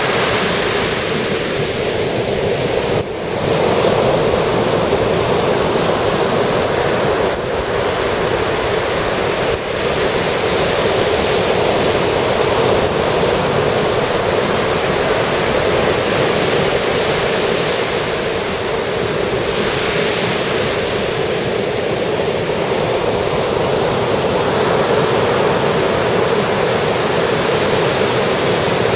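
Surf breaking and washing on a sandy beach: a steady, continuous rush of waves with slight swells.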